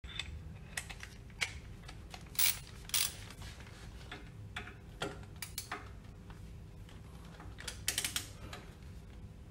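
Hand ratchet and torque wrench clicking as the seal cover bolts on a pump are tightened. The clicks come in irregular runs, with a few louder sharp clicks about two and a half seconds in and again near eight seconds.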